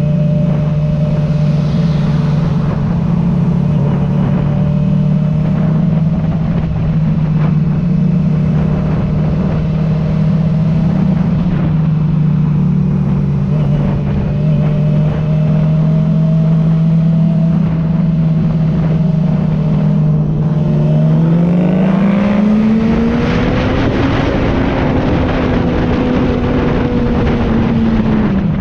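Sport motorcycle engine running steadily at cruising speed. About 21 seconds in it revs up hard, its pitch climbing as the bike accelerates, then holds high and drops again near the end as the throttle comes off.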